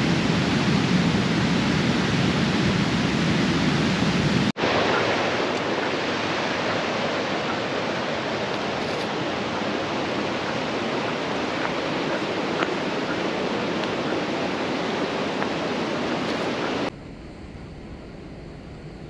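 Steady rush of a flowing river's current, an even hiss without any tone. It breaks off for an instant about four and a half seconds in, and falls to a softer, more distant rush near the end.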